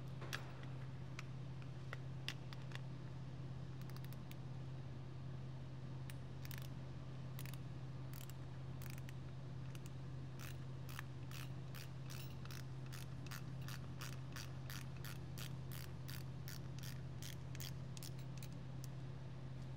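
Screws being driven by hand into a soil pick's plastic handle with a ratcheting driver: a few scattered clicks, then from about halfway in a run of regular ratchet clicks about three a second. A steady low hum lies underneath.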